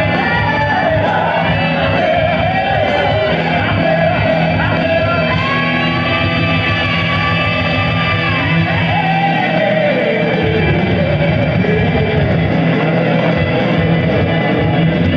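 Live rock band playing: sung vocals over electric guitar, bass guitar and drums. A long note is held in the middle and then slides down.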